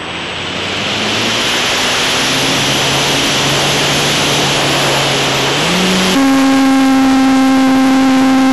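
Wind rushing over an action camera mounted on a radio-controlled T-28 model plane, with the plane's electric motor and propeller humming low at part throttle. About six seconds in, the motor jumps to a loud, steady whine as the throttle is opened.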